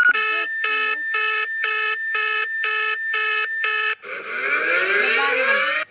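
Emergency alert alarm tone: a steady high tone runs under a pulsing beep, about two beeps a second. About four seconds in, the beeping gives way to a dense rising sweep of many tones.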